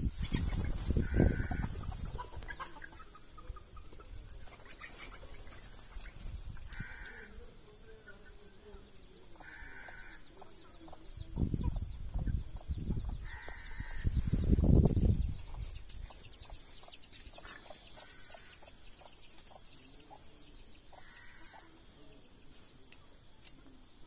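Chickens clucking now and then, short calls a few seconds apart, with a few loud low rumbles near the start and again about halfway through.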